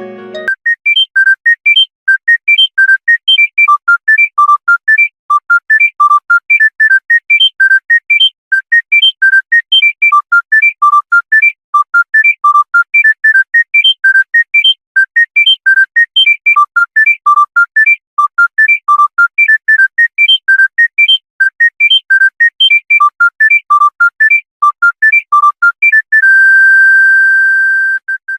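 Monophonic mobile phone ringtone: a fast phrase of short, high, pure beeping notes repeated over and over, loud, ending on one long held tone.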